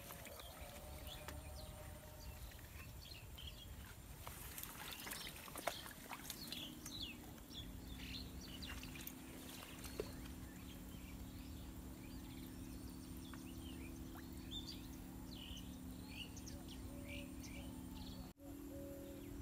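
Rural outdoor ambience of many short bird chirps and calls, with a steady low hum coming in about six seconds in and two sharp clicks.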